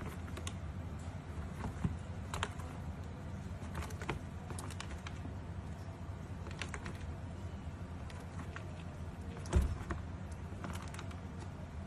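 Scattered light clicks and taps, irregular and keyboard-like, from crickets hopping and landing on a plastic tub floor. About two-thirds of the way through comes a single louder thump as a giant African bullfrog lunges and snaps up a cricket.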